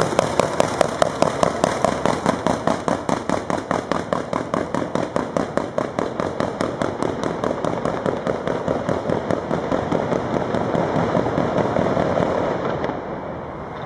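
Fireworks going off in a rapid, even string of sharp reports, about six a second. Towards the end the reports run together into a steady rushing noise that fades out.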